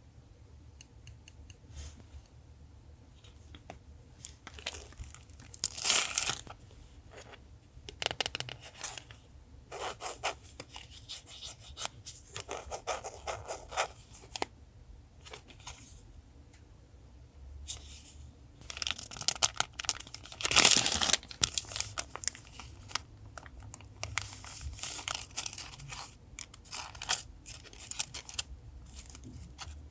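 Paper being handled close up, rustling, crinkling and tearing in short, irregular bursts, with the loudest moments about six seconds in and again around twenty seconds in.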